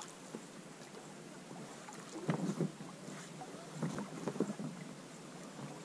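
A small boat drifting on a river: faint steady water and wind noise, with two brief clusters of light knocks and splashes about two and four seconds in.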